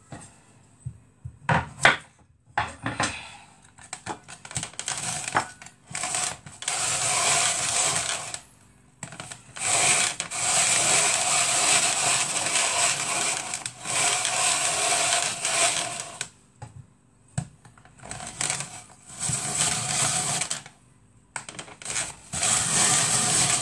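Electric countertop blender run in several bursts of a few seconds each, switched on and off again and again by pressing its button, with a few knocks before the first burst. The potatoes in the jug are slow to blend down even though the blades are sharp.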